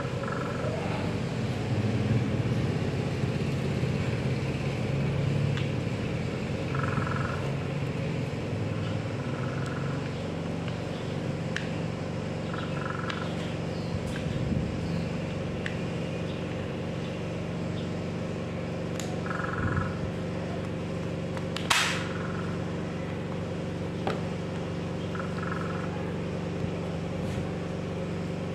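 Steady low mechanical hum with several fixed tones, a few short faint higher-pitched calls now and then, and one sharp click about three quarters of the way through.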